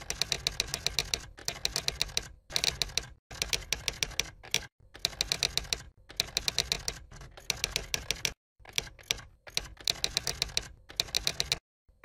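Typing: rapid, evenly spaced key clicks, about ten a second, in a dozen short runs that start and stop abruptly with brief pauses between them.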